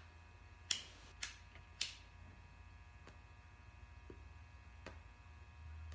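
Butane lighter being clicked three times in quick succession, about half a second apart, to light a cigar, followed by a few fainter ticks, over a steady low hum.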